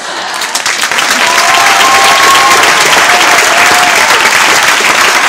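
Audience applauding after a choir song, the clapping building over the first second and then holding loud and steady.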